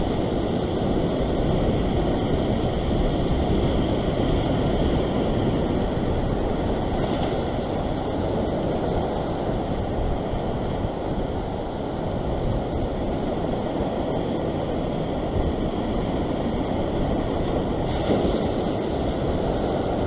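Ocean surf washing against and over a rock ledge: a steady rush of water with gentle swells, with wind rumbling on the microphone.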